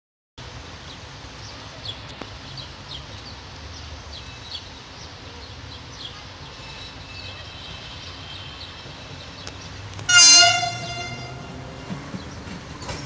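A Siemens Desiro diesel multiple unit approaching, a steady low rumble with faint clicks, then sounding its horn in one short loud blast about ten seconds in.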